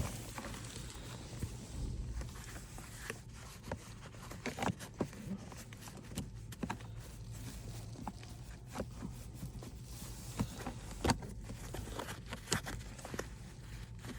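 Scattered small clicks and knocks of hands working wiring and plastic trim in a car's centre console, over a steady low hum.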